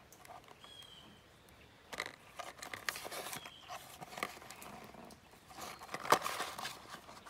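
A small cardboard spark plug box being handled and opened: rustling, scraping and light tapping of the cardboard, with a sharper knock about six seconds in.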